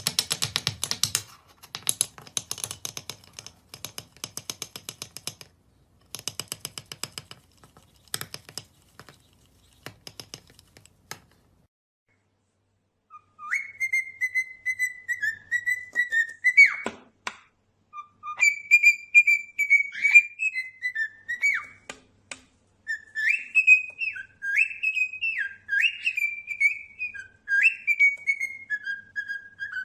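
A bird makes bursts of rapid clicking for about the first ten seconds. After a short pause it whistles a string of clear notes that slide up and down in pitch.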